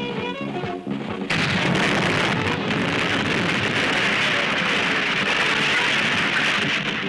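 Film explosion: a sudden loud blast about a second in, carrying on as a dense, steady noise of fire and falling debris for about six seconds. Soundtrack music plays briefly before it.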